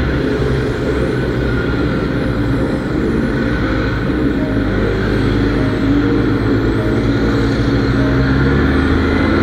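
Kawasaki Z800's inline-four engine running steadily as the motorcycle rides slowly through traffic, its note shifting a little.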